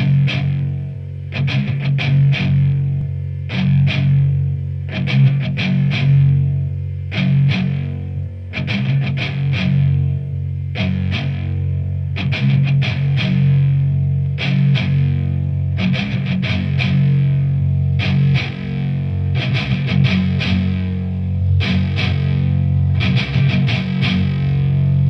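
Background music: distorted electric guitar rock with steady sustained bass notes and repeated plucked chords.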